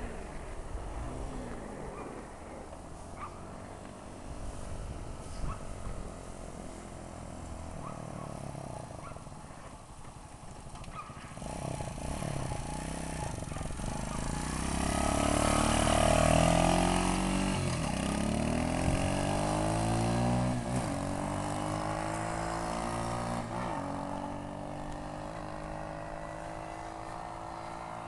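X18 pocket bike's small two-stroke engine, faint at first and growing louder as the bike rides up and passes close by about halfway through, its pitch dropping as it goes past. It then runs on steadily with a slowly rising pitch.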